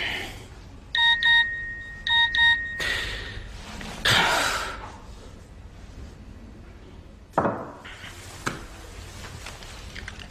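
Electronic phone ringtone: two pairs of short, high, steady beeps, the second pair trailing into a held tone. It is followed by two soft rustling swells and a sharp click near the end.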